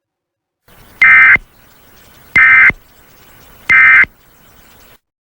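Emergency Alert System end-of-message signal: three short bursts of digital SAME data tone, about 1.3 seconds apart, over a faint hiss. The bursts mark the close of the alert.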